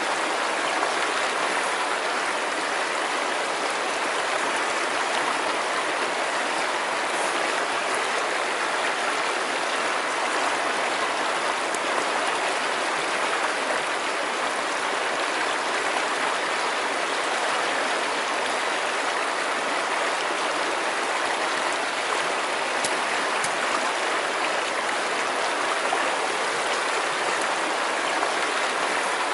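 River water rushing steadily over stones, a constant even rush of running water.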